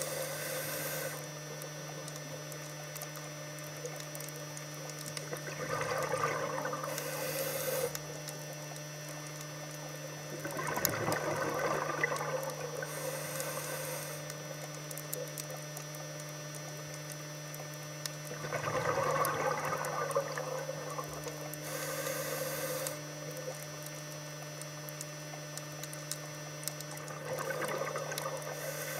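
A scuba diver breathing through a regulator underwater. A bubbling exhale of a couple of seconds is followed by a short hiss of inhalation, repeating every several seconds over a steady low hum.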